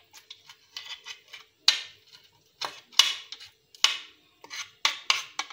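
A steel spoon and a small knife clicking and scraping against a plate in irregular sharp taps while the stones are pushed out of soft boiled apricots.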